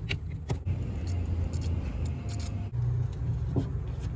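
Small clicks and scrapes of a hand working the chrome handle of a sink's angle stop valve, over a steady low hum.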